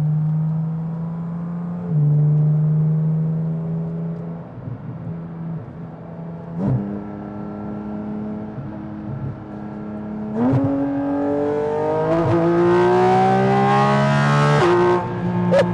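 Porsche 718 Cayman GT4 RS 4.0-litre flat-six, breathing through a Fi-Exhaust valved muffler and catless downpipe, accelerating through the gears. The engine note climbs and drops back at each upshift. It is loudest over the last five seconds as it pulls hard.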